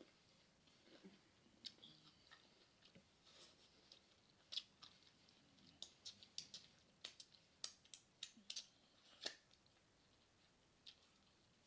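Close-up chewing of crunchy tacos: irregular crisp crunches and mouth clicks, thickest in the middle of the stretch.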